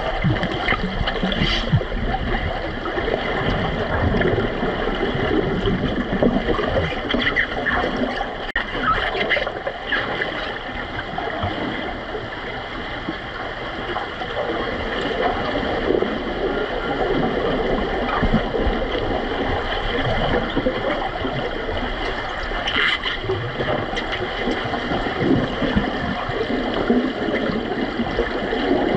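Pool water heard underwater: a steady muffled churning and bubbling stirred up by finned swimmers, with a couple of brief sharp clicks.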